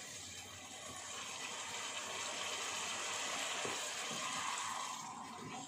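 Tomato sambal bubbling and sizzling in a pan while it is stirred with a wooden spatula. The hiss builds over the first couple of seconds and eases off near the end.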